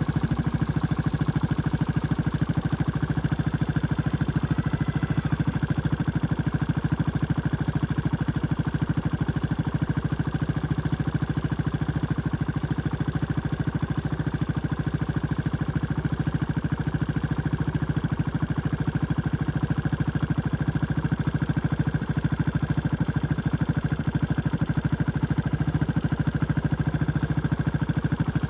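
A farm vehicle's engine running steadily at an even speed.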